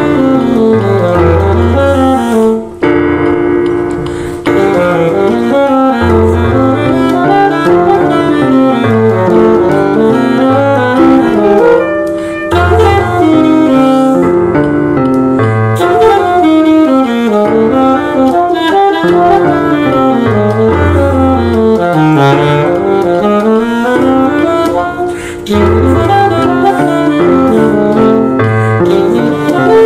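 Alto saxophone playing a jazz melody layered over piano chords, the sax spliced onto the piano accompaniment.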